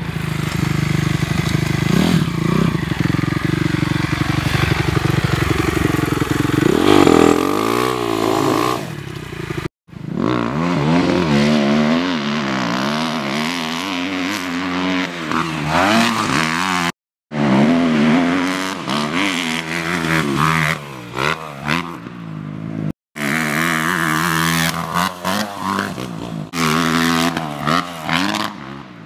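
Motocross dirt bike engines revving up and down as the bikes ride the track and take jumps, the pitch rising and falling with throttle and gear changes. Several clips are cut together, with abrupt breaks of silence between them.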